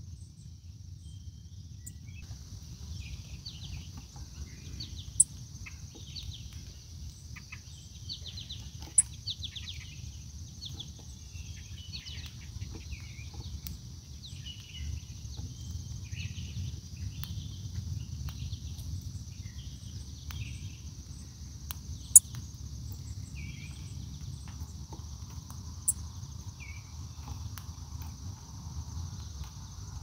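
Outdoor ambience: a steady high insect drone that sets in about two seconds in, many short chirps of wild birds, and a low rumble underneath. A few sharp clicks stand out, the loudest about twenty-two seconds in.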